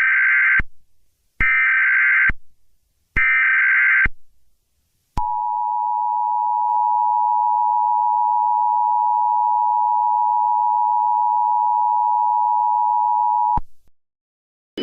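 Emergency Alert System tones: three short bursts of SAME digital header data, each just under a second, then the EAS two-tone attention signal (853 and 960 Hz) held steady for about eight seconds before cutting off.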